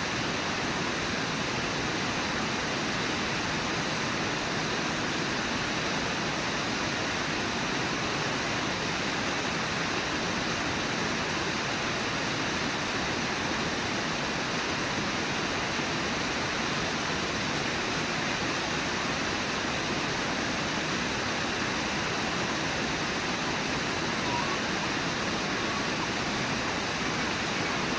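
Steady rush of river water, an even hiss that does not change. A few faint short calls sound near the end.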